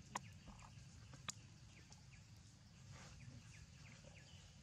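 Near silence: faint outdoor ambience with scattered faint, short high chirps, broken by two sharp clicks, one just after the start and another about a second later.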